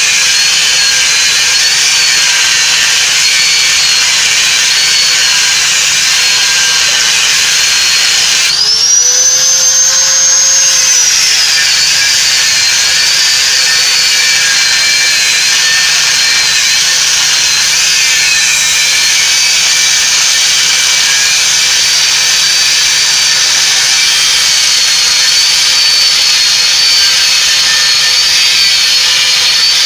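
High-speed electric power tool whining steadily, its pitch wavering as the load changes. About a third of the way in the pitch jumps up for roughly two seconds, as when the tool comes off the work and spins freely, then drops back.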